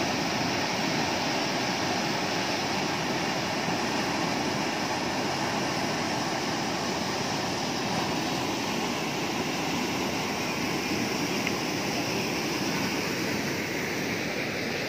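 Muddy floodwater rushing over a road and down a river in spate, a steady unbroken rush of churning water.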